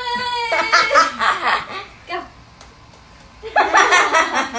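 People laughing in two bursts, the first about half a second in and the second near the end, with a brief voiced exclamation at the very start.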